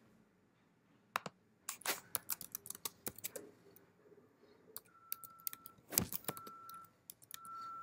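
Typing on a computer keyboard: a run of quick key clicks, a pause of about a second and a half, then more clicks.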